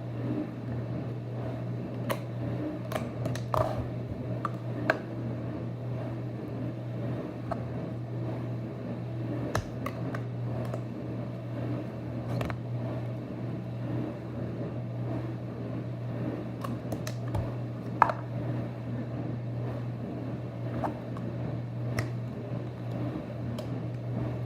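Scattered light clicks and taps of plastic Play-Doh tubs and lids being handled, over a steady low hum.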